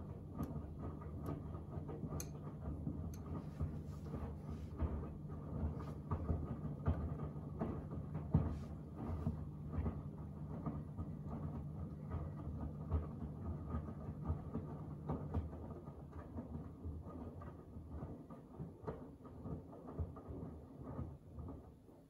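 Miele W1 front-loading washing machine tumbling a wash load: the drum motor hums steadily while wet laundry slaps and water splashes inside the drum, with many small knocks. The tumbling fades over the last few seconds and stops at the very end as the drum comes to rest.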